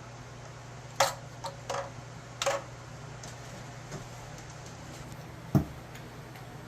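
Sharp clicks and knocks of tools and fittings being worked while plumbing is connected to a water heater: four in the first few seconds and one louder knock near the end, over a steady low hum.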